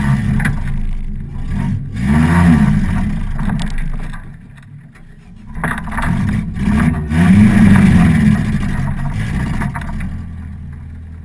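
Opel Corsa autocross car's engine heard from inside its stripped, caged cabin, revving up and falling back as the driver accelerates and lifts off. There is a lull about four seconds in, and it settles lower near the end as the car slows.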